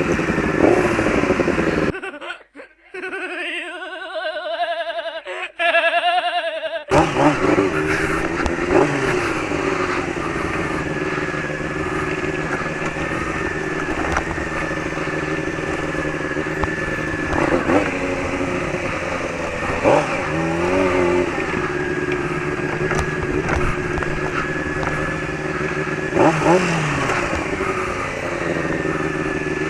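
Motorcycle engine running while the bike is ridden, with the revs rising and falling briefly several times. For a few seconds near the start the sound turns thinner and cleaner before the steady engine sound returns.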